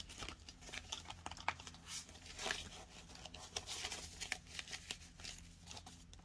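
Faint paper banknotes rustling and a clear plastic cash envelope crinkling as bills are handled and slipped into a budget binder, in short scattered rustles.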